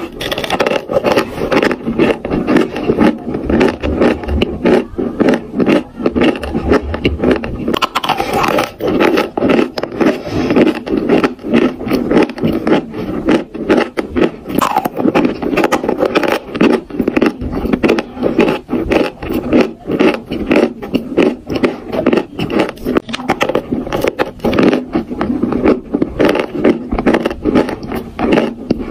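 Dry chalk being chewed and crunched close to the microphone, a dense run of rapid, gritty crunches.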